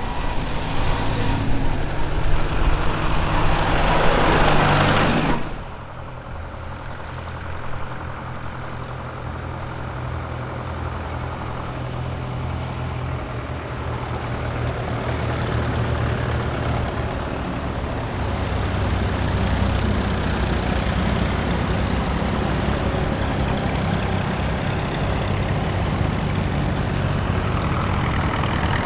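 A vintage car's engine and tyres pass close by, then after a cut, vintage tractor engines run steadily as tractors drive past one after another. The low engine sound grows a little louder about two-thirds of the way through.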